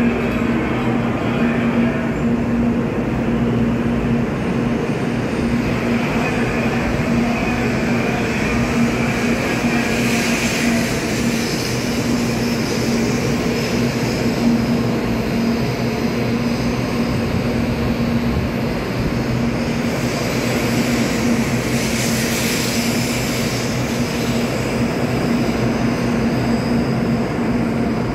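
A Shinkansen bullet train pulling out of the station and gathering speed past the platform: a steady rumble of wheels and running gear under a constant low hum, with a hiss that swells twice.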